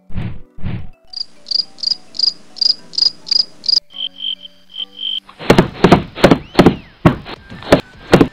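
Edited-in sound effects: a few low thumps, then high evenly spaced chirps about three a second, then a short pulsing beep, and from about halfway a fast run of sharp percussive hits that is the loudest part.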